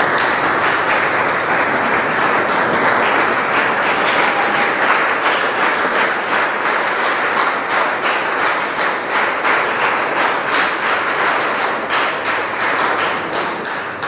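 A roomful of people applauding: sustained clapping from many hands that thins out into separate claps near the end.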